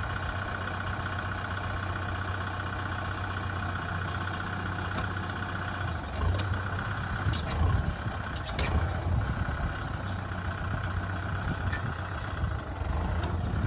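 A motor or engine running steadily, with a few clicks and knocks near the middle.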